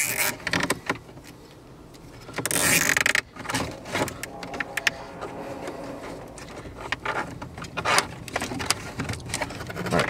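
Hands handling wiring and plastic parts inside a car's dashboard radio cavity: scattered clicks and rustling, with a half-second burst of denser rustling about two and a half seconds in.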